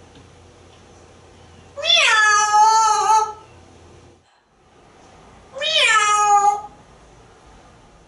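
African grey parrot imitating a cat's meow: two long, wavering meows, the first about two seconds in and lasting about a second and a half, the second shorter, a couple of seconds later.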